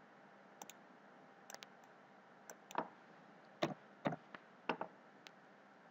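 Computer mouse and keyboard clicks: about ten short, single clicks, faint and scattered at first, then louder and closer together in the second half.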